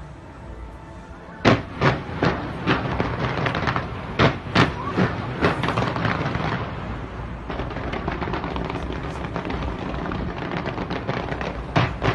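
Aerial fireworks display going off. About a second and a half in, a sharp bang opens a quick run of bangs and crackling that stays dense for several seconds, thins to a steady crackle, and picks up again with more bangs near the end.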